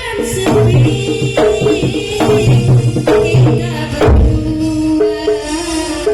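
Live Javanese jaranan (kuda lumping) music: hand drums beat a steady rhythm under ringing pitched tones, with a heavy low drum or gong hit about four seconds in.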